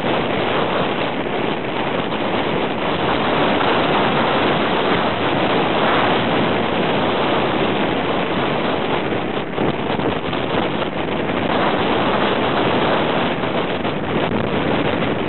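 Strong wind buffeting the microphone: a loud, steady rushing roar with small dips and gusts.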